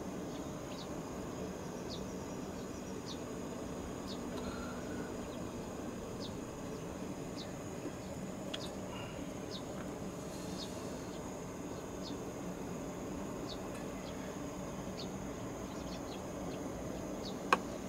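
Insects chirping outdoors: short high notes repeating about once a second over a steady high-pitched drone and a low background hum, with a single sharp click near the end.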